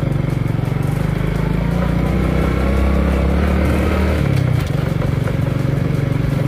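Honda Biz small motorcycle's single-cylinder four-stroke engine running while riding along, its note shifting about four seconds in.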